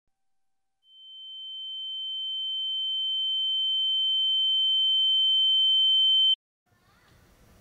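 A single high-pitched, steady electronic tone, a sound-design effect. It fades in about a second in, swells steadily louder for about five seconds, then cuts off suddenly.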